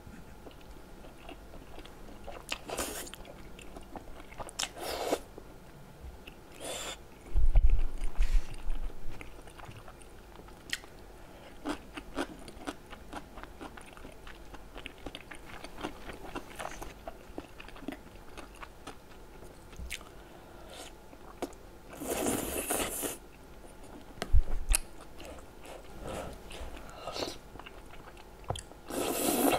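Close-miked wet chewing and lip smacking of chewy rice cakes and melted cheese, with a few short slurps, one of a wide glass noodle near the end. A few loud, dull low thumps come about a quarter of the way in.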